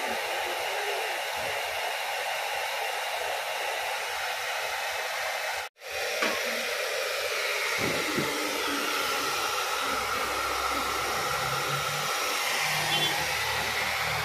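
Handheld hair dryer blowing steadily while a client's hair is blow-dried with a round brush. The sound drops out for an instant a little under six seconds in, then carries on.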